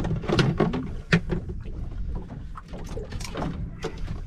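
Irregular knocks and slaps on a boat deck as a freshly landed snapper is handled, over a steady low rush of wind and water.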